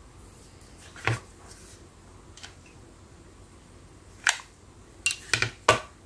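A handful of sharp clicks and knocks of small hard objects being handled and set down: one about a second in, then a quick cluster of four or five near the end.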